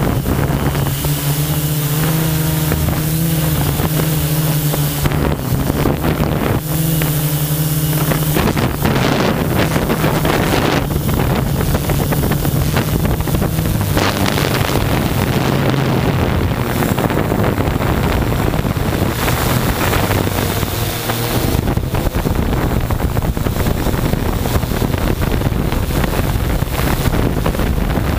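Mikrokopter multicopter's electric motors and propellers humming steadily, the pitch shifting now and then, heard from the camera on the craft. Heavy wind buffets the microphone in gusts.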